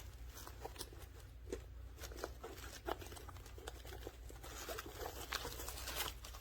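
Nylon weighted vest and its webbing strap being handled: quiet, irregular rustling with scattered small taps and scrapes as the strap is pressed down over the plates.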